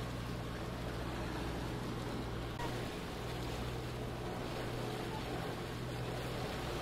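Steady wind and water noise over a low, steady hum, with a slight change in the noise where the shot cuts about two and a half seconds in.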